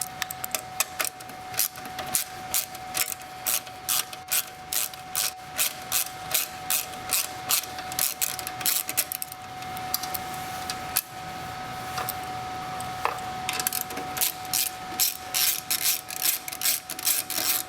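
Screwdriver backing out the two screws that hold the power supply in an IBM 3590 tape drive: a run of regular clicks, about three a second, for the first screw, a pause of a few seconds, then a second run for the other screw. A faint steady high hum runs underneath.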